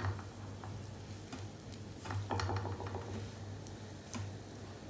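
Bread slices frying in garlic butter in a nonstick pan with a light sizzle. A metal slotted spatula presses and scrapes against the pan, giving several short knocks and scrapes, over a steady low hum.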